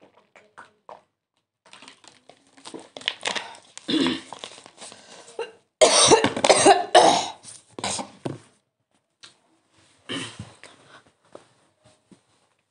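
A woman coughing in several short bouts, the loudest about six seconds in.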